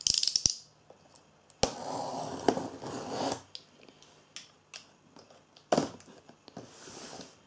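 Cardboard carton being cut open with a box cutter and handled: sharp clicks and knocks, with a scraping stretch of the blade drawing along the cardboard about one and a half seconds in that lasts nearly two seconds, and a softer scrape near the end.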